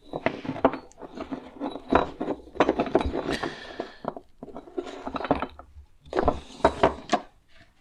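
Small clinks, clicks and rattles of lamp-fitting parts being handled, coming in three bunches with short pauses between.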